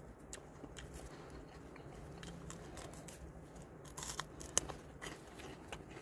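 Faint, irregular crunching and clicking of someone chewing raw fern fronds and Chinese asparagus root, with a few sharper crunches about four seconds in.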